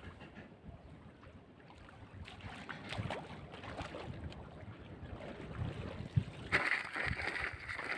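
Water splashing and sloshing with scattered knocks, and wind on the microphone; the splashing grows louder about six and a half seconds in.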